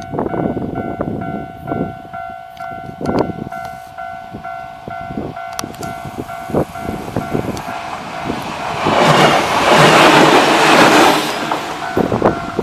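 Japanese level-crossing alarm ringing with a steady repeating two-tone chime, then an Enshu Railway electric train passes over the crossing about eight and a half seconds in as a loud rush of wheel and rail noise that dies away about three seconds later.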